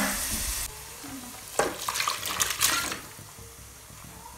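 A pan sizzling that cuts off under a second in, then a few sharp clinks and scrapes of a spoon against cooking pots as pressure-cooked duck is moved into the pan of onion gravy.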